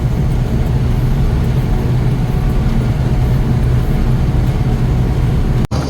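Gleaner N6 rotary combine running under load while harvesting wheat: a steady low drone of engine and threshing machinery. It cuts off abruptly near the end, and a different, lower steady drone follows.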